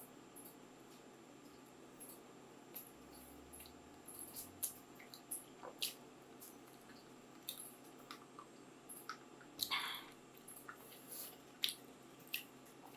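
Close-miked eating: chewing and wet mouth clicks at irregular intervals, with one slightly longer, noisier sound about three quarters of the way through.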